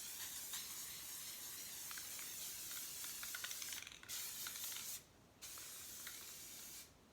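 Aerosol can of self-etching primer spraying with a steady hiss, let off for short pauses about four and five seconds in.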